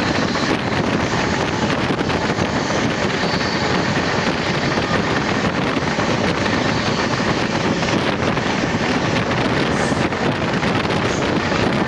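Moving train heard from on board: a steady rush of wind on the microphone over the train's running rumble.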